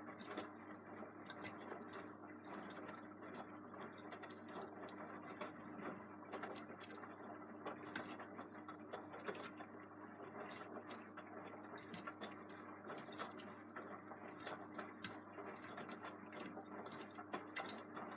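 Beko WM74165W washing machine running its wash: a steady motor hum as the drum turns, with many irregular light clicks and ticks.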